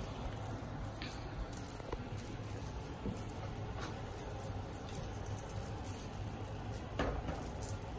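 Faint rustling, light taps and small rattles of a kitten batting and grabbing at a feather-and-pom-pom wand toy on a rug, with a slightly louder tap near the end, over a low steady hum.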